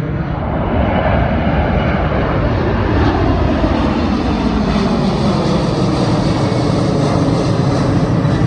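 Engines of a departing airliner at takeoff power: a loud, steady roar that swells about half a second in, with a tone falling in pitch over the next few seconds as it passes.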